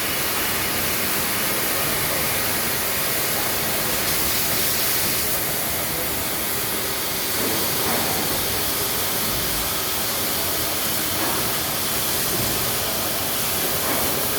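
A CNC machining centre at work, giving a steady, even hiss without pauses.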